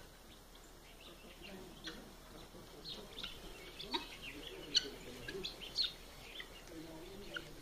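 Farmyard birds chirping: many short, high calls coming several a second, starting a couple of seconds in, with a few faint lower calls under them.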